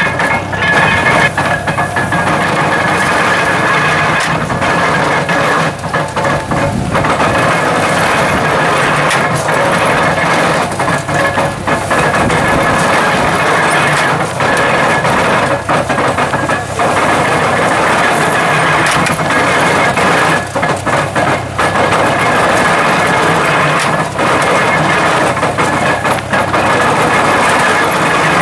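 IHC hay baler running steadily, loud, with the engine that drives it.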